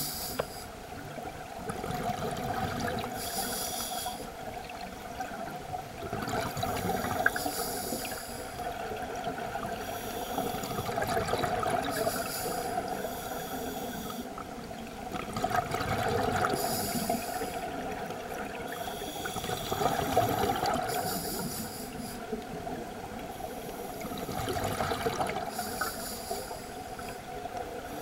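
Scuba divers breathing through demand regulators underwater: a hiss on each inhale alternates with the bubbling of exhaled air, in a cycle roughly every four seconds.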